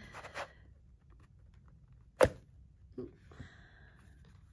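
A small cardboard drawer box being handled as its drawer slides out of the sleeve: a brief rustle, one sharp tap about two seconds in, then a softer knock and a short scraping slide of card on card.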